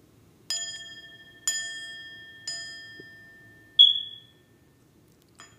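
Three strikes of a chime about a second apart, each ringing out and fading slowly, followed by a single louder, higher, short ping.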